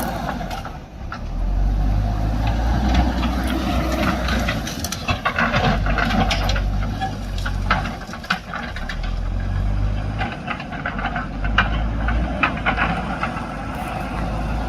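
JCB backhoe loader's diesel engine running under load, its level rising and falling as it works, with a scattering of short knocks and clanks through the middle.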